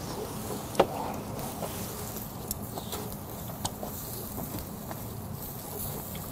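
Slices of beef tongue sizzling on a wire grill over charcoal: a steady hiss with scattered crackles and pops, and one sharper click a little under a second in.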